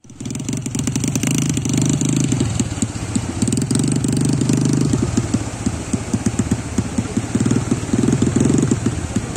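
A speedboat engine running unevenly, with a fast, irregular pulsing throb, over the hiss of surf breaking on the beach.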